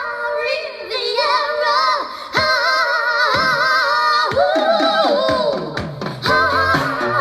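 A vinyl record playing on an Audio-Technica AT770 Sound Burger portable turntable, heard through a speaker connected to its RCA outputs: a song with singing.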